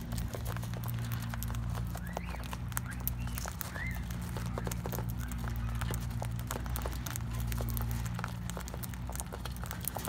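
Cockatiels pecking and cracking sunflower-seed mix in a feeding dish: rapid, irregular small clicks and crackles, with two faint bird chirps about two and four seconds in, over a steady low hum.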